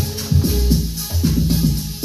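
Amapiano dance music from a DJ mix, with deep bass notes and a steady beat.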